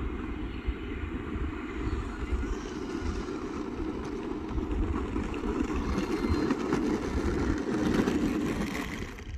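Wind buffeting the microphone in gusts, with the faint whine of an electric RC model airplane flying.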